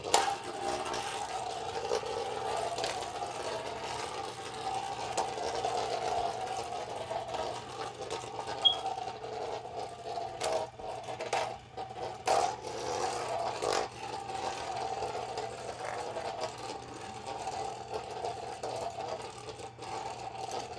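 3D-printed Beyblade spinning tops whirring in a plastic stadium with a steady, wavering spinning hum. Sharp clacks sound as they collide, once at the start and several more about ten to fourteen seconds in.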